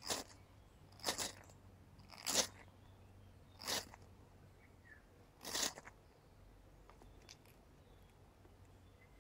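Ferro rod struck five times with a scraper, each a short harsh scrape about a second or so apart, showering sparks onto featherstick shavings to light them; the last strike is a little longer.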